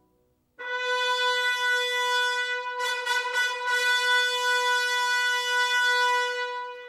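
After a brief silence, a single long note held on a brass instrument, steady in pitch, fading away near the end.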